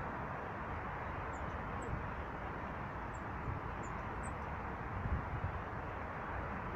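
A few short, very high-pitched calls from small birds, about five in all, between one and four and a half seconds in, over a steady rushing background noise with low rumbles.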